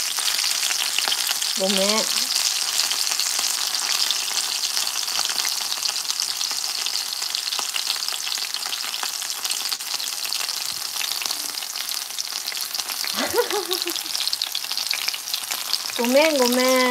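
Coated chicken pieces for karaage shallow-frying in oil in a frying pan: a steady sizzle with fine crackles throughout.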